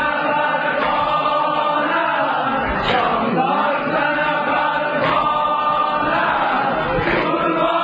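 Voices chanting a devotional hymn together, choir-like and continuous, with long held, wavering lines.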